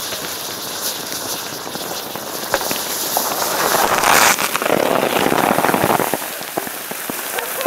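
Thermite burning: a steady sizzle peppered with sparking crackles, swelling about three seconds in to a louder rushing flare that throws out molten sparks, then dying back near the end.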